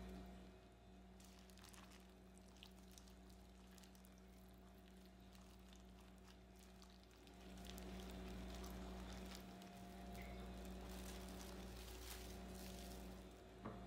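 Near silence: a low steady hum under faint kitchen handling sounds as olive oil is poured over sliced raw meat in a glass bowl and the meat is mixed by a gloved hand. A single sharp click near the end.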